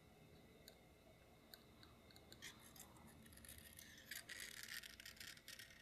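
A few faint light clicks, then from about two and a half seconds in a quick, dense scratchy scrubbing, as of a small brush or abrasive worked by hand over a part.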